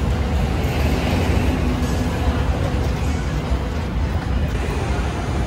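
Steady low rumble and hum of a busy outdoor food-stall setting, over which a cleaver knocks lightly a few times on a plastic cutting board as it slices grilled mushroom.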